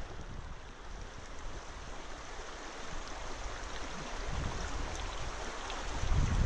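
Shallow mountain stream running over stones, a steady rushing hiss. Wind starts to rumble on the microphone near the end.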